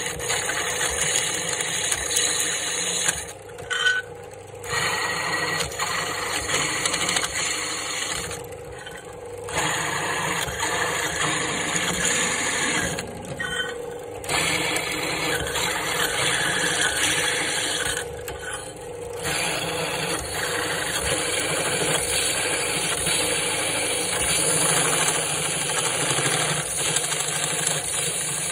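Drill press running, its step drill bit grinding through a metal guitar-pedal enclosure to bore control holes. The cutting noise drops away four times for about a second and then comes back.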